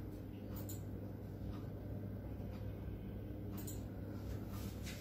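Low, steady hum of room tone, with a few faint, short clicks scattered through it.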